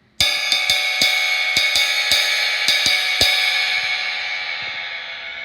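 An 18-inch old stamp K Zildjian Istanbul cymbal (type 3A, 1,350 grams) struck about nine times in quick, uneven strokes over three seconds. It is then left to ring, its bright shimmering wash slowly fading.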